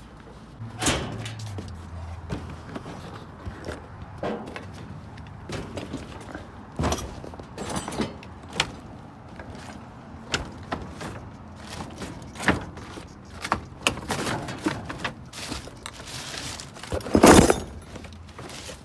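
Irregular clanks, knocks and rattles of boxed metal door locks and hardware being shifted and handled, with one heavy bang about 17 seconds in.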